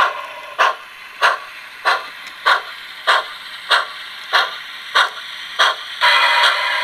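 Sound decoder of a Bachmann Sound Value 2-6-0 Mogul model steam locomotive playing steam exhaust chuffs through its small speaker, evenly paced at about one and a half a second as the engine creeps along. A louder steady hiss starts about six seconds in.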